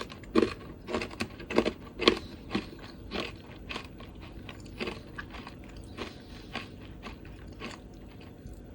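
Person biting and chewing milk-chocolate-coated banana chips: crisp crunches, loudest and quickest over the first three seconds or so, then softer, sparser chewing.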